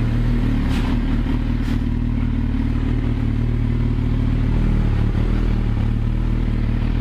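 Yamaha YZF-R6's inline-four engine running steadily at an even pitch, with two faint clicks about one and two seconds in.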